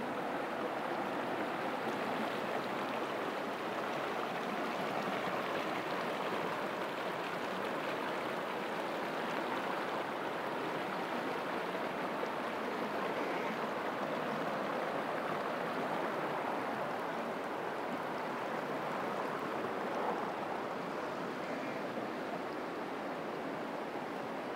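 Muddy floodwater rushing fast over a low ledge: a steady, unbroken rush of water.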